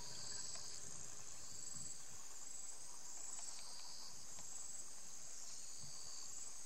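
Steady chorus of insects, cricket-like, trilling continuously at a high pitch, its tone shifting slightly every second or two.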